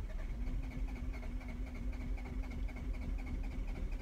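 A car's starter motor cranking the engine steadily without it catching: the engine won't start.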